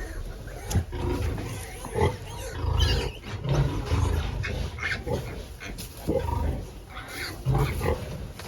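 Pigs grunting, a stream of short, irregular, overlapping calls, some of them higher-pitched.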